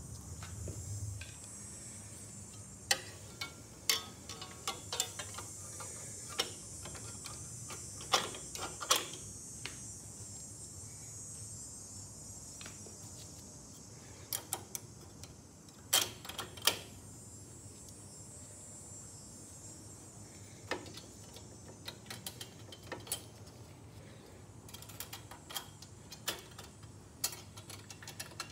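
Scattered light clicks and taps of plastic and metal parts being handled and slid onto the carburetor mounting studs of a small snow thrower engine, a few sharper knocks among them, over a faint steady hiss.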